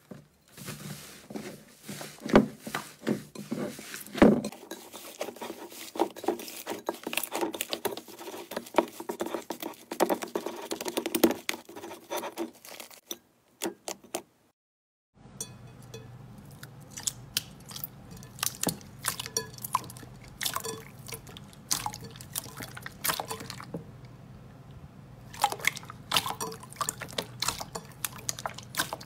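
Slime being pressed, poked and stretched by hand: a dense run of sticky clicks, small pops and wet squelches, broken by a short silent gap about halfway through.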